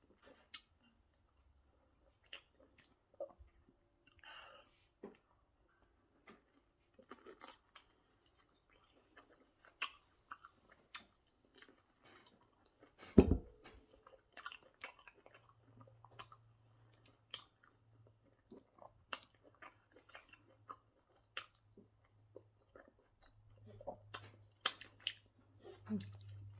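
Close-up eating sounds of fufu and egusi soup: soft chewing and wet mouth clicks, with one louder thump about halfway through and a faint low hum in the latter part.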